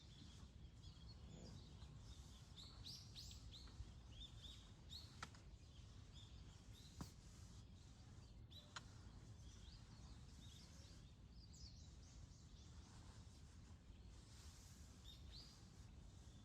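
Faint outdoor morning ambience: scattered short bird chirps and calls over a low steady rumble, with a few faint sharp clicks.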